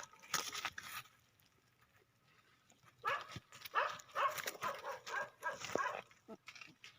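Goats bleating: after a quiet stretch, a string of short calls with sliding pitch starts about three seconds in.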